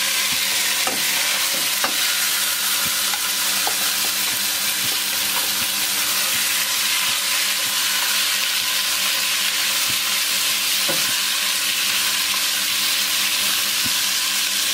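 Masala-marinated chicken sizzling in hot coconut oil in a nonstick pot as it is stirred with a wooden spatula: a steady frying hiss with a few light knocks of the spatula.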